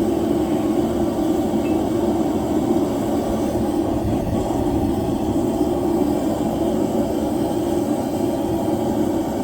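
Forge running: a steady, even rushing noise with no hammer strikes.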